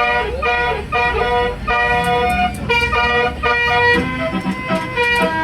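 Basuri telolet bus horn playing a tune of short, steady-pitched horn notes, each held a few tenths of a second, with lower notes coming in about four seconds in.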